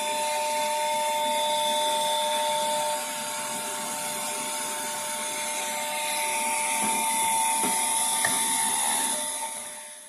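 Small blower fan of a homemade cyclone dust collector running steadily with a whine and a high hiss, a little quieter for a few seconds in the middle.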